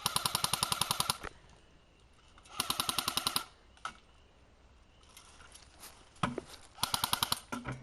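Airsoft electric rifles firing full-auto: three quick bursts of rapid mechanical clicks, about a dozen a second, the first and second each about a second long, a shorter one near the end. A fainter burst from farther off and a couple of single knocks fall in between.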